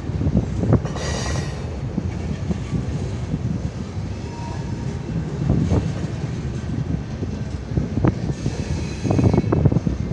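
Freight train rolling past with a steady low rumble of wheels on the rails, and brief high wheel squeals about a second in and again near the end.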